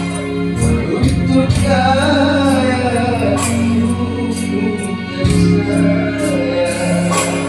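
Slow, mournful Malay song: a wavering sung melody over held low accompaniment notes.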